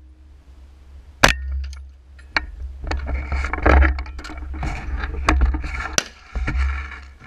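Suppressed AR-15 firing a series of sharp shots, heard from a GoPro mounted on the rifle's rail. The loudest shot comes about a second in, with more spread through the rest, and rattling and clinking between them as the rifle is handled, over a steady low rumble.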